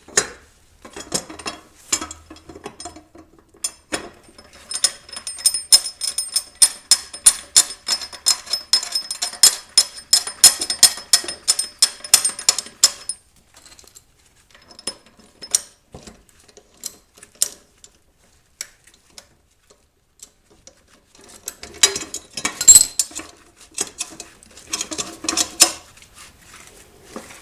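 Metal clinking and tool handling as a lawnmower mulching blade and its bolt are refitted. A rapid, even run of ringing clicks lasts about eight seconds, then come scattered clicks, a short pause, and more metal clattering near the end.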